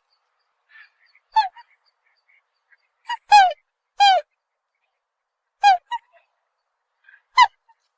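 Swan calling: short honking calls, some singly and some in quick pairs, a second or two apart, each dipping slightly in pitch.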